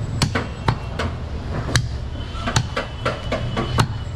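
Heavy butcher's knife chopping goat meat on a wooden chopping block: about ten sharp chops at an uneven pace.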